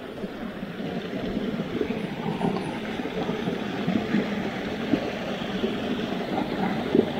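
Small mountain-stream waterfall rushing steadily into a clear pool, growing a little louder about a second in.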